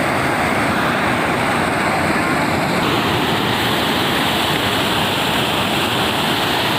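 Waterfall rushing: a steady, loud wash of falling water with no let-up, turning slightly brighter about three seconds in.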